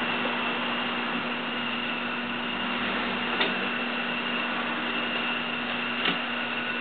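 Steady hum of the vintage Union Special 51500 chain-stitch sewing machine's motor running while the machine is not stitching, with two light clicks, one about three and a half seconds in and one about six seconds in.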